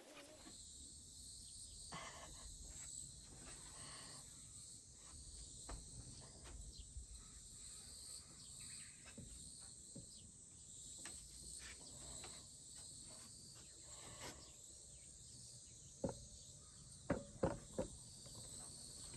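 A steady chorus of insects chirring in the background, with scattered light knocks and clicks and a few sharper clicks near the end.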